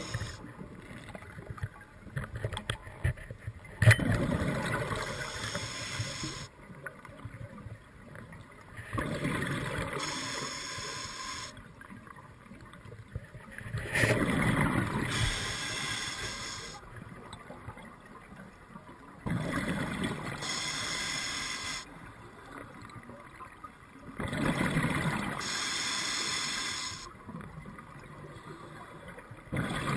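Scuba diver breathing through a regulator, heard underwater: a bubbling rush of exhaled bubbles about every five seconds, each lasting about two seconds, with quieter inhalations between. A few sharp clicks come in the first few seconds.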